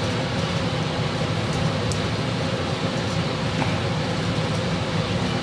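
A steady mechanical hum with a few faint ticks.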